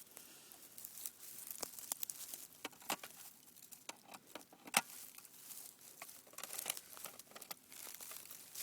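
Irregular rustling and crackling of dry ground cover being pushed through and handled, with one sharper crackle about halfway through.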